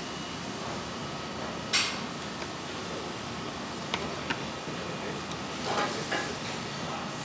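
A spatula scraping and tapping as cream is scooped from a plastic tub and spread onto bread: a short scrape about two seconds in, two light clicks around four seconds, and more scraping near six seconds, over steady background noise.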